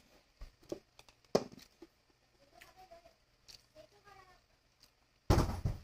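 Metal spoon clicking and scraping against a bowl while eating, several sharp clicks in the first two seconds. A loud half-second burst of noise near the end.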